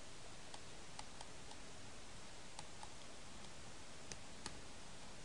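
Faint, irregular clicks and taps of a stylus writing on a tablet screen, over a steady low hiss.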